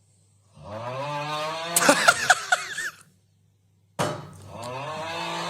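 A man's loud, exaggerated snoring: two long voice-like snores that rise in pitch, the first breaking into a few sharp crackling snorts, over a low steady hum.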